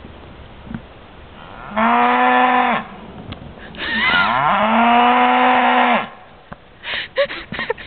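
Cow mooing loudly: two long moos, the first about a second long, the second about two seconds long, rising in pitch at its start and then held steady.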